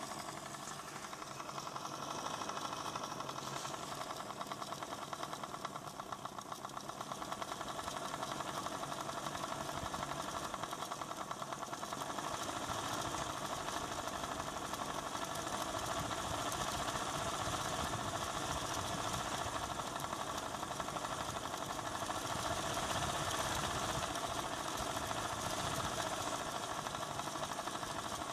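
ADDA computer fan running with bad bearings, a steady whir with a fast rattling buzz from the worn bearing. The sound grows somewhat louder and rougher over the second half.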